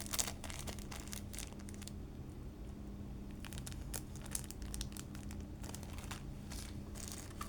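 Packaging of small electronic components crinkling and rustling in irregular short bursts as the parts are handled and sorted, over a faint steady low hum.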